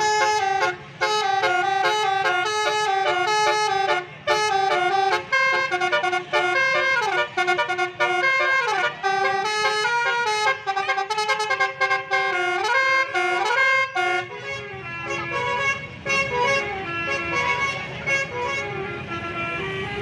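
Basuri telolet horn, a multi-tone musical air horn of the kind fitted to Indonesian buses, playing a tune of short stepped notes with a few sliding notes in the middle. It becomes quieter about fourteen seconds in, its tones still sounding.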